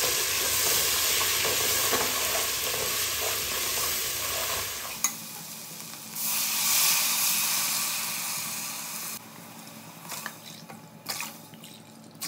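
Onions and spices sizzling in hot oil and ghee in an aluminium pot while a ladle stirs them. The sizzling stops abruptly about five seconds in and starts again a second later. Near the end it gives way to quieter clinks and scrapes.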